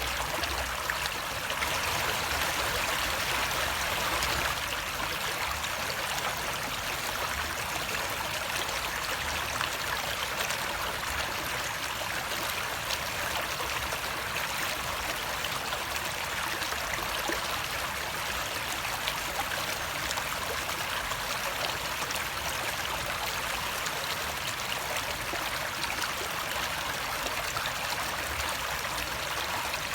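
Running water, a steady rushing and trickling with no pauses, slightly louder for a couple of seconds near the start.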